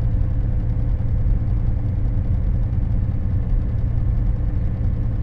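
Vehicle driving at a steady speed, heard from inside the cabin: a steady low rumble of engine and road noise.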